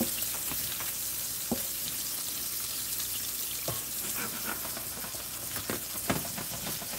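Sirloin steaks searing in hot butter in a frying pan: a steady sizzle, with a few light knocks of a silicone spoon against the pan as it works the butter around the meat.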